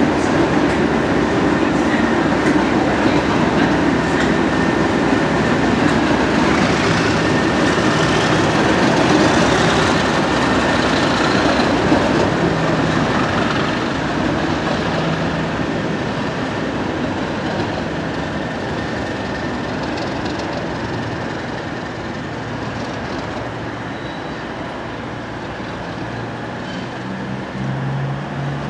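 Colas Rail Class 37 diesel locomotive 37099's English Electric V12 engine running loudly, with a steady high whistle over it. The sound fades over the second half as the train pulls away.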